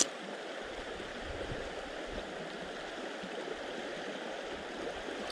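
River current rushing over a shallow stony bed, a steady even wash of water, with one short sharp click at the very start.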